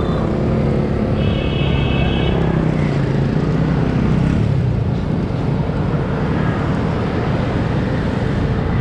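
Steady road traffic noise: motor vehicles running close by with a heavy low rumble. A brief high-pitched tone sounds for about a second, shortly after the start.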